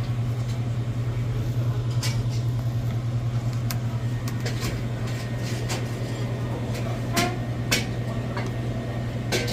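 Busung Everest commercial freezer-refrigerator running with a steady low hum while two of its fans are not turning. A few sharp clicks and knocks sound over the hum.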